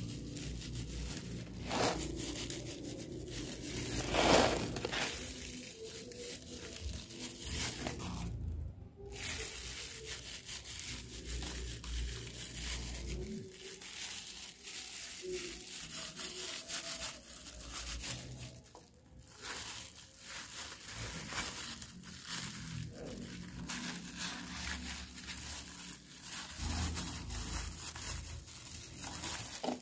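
Plastic food-prep gloves and baking paper crinkling and rustling in irregular crackles as gloved hands sprinkle toppings and press bread slices into a lined pan.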